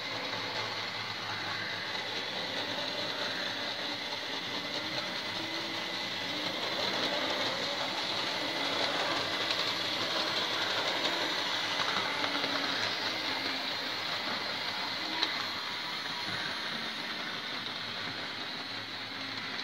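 Hornby OO gauge Terrier model locomotives pulling trains of wagons round the track, a steady running sound of the motors and wheels on the rails, with one sharp click about three-quarters of the way through.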